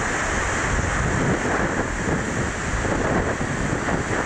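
Hurricane Katrina's wind blowing hard and steadily, buffeting the microphone, with storm-surge water washing across a flooded floor.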